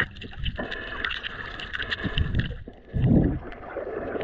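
Muffled underwater sound from a submerged camera: water sloshing and gurgling against it, with scattered faint clicks. A louder low rush of water comes about two seconds in and another, the loudest, about three seconds in.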